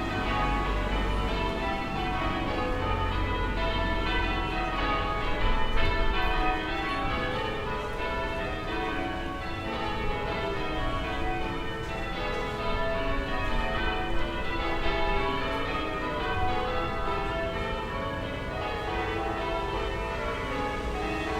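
Distant church tower bells ringing a continuous peal, stroke after stroke overlapping. A low town rumble sits beneath, strongest in the first several seconds.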